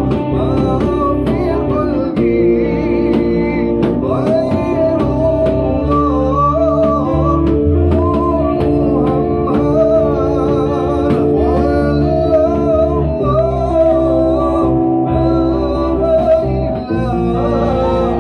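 Live Malay rock band playing: singing over guitar with a full band backing.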